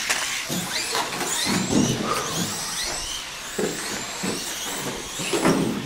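Several radio-controlled off-road race cars racing, their motors whining and repeatedly rising and falling in pitch as they accelerate and slow.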